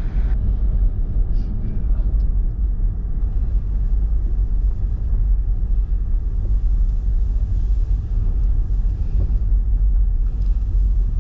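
Steady low road rumble heard inside a moving car's cabin.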